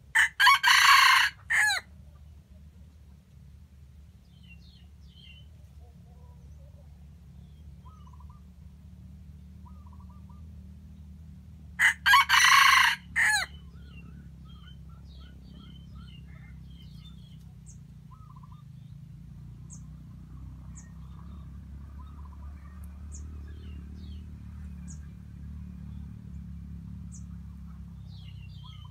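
Red junglefowl rooster crowing twice, about eleven seconds apart, each crow about a second and a half long and ending in a short separate final note. Small birds chirp faintly in the background.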